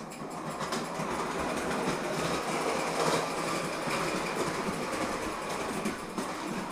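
Bowman 234 live-steam O gauge toy locomotive and tender running round tinplate track, a steady mechanical rattle of its wheels and motion on the metal rails.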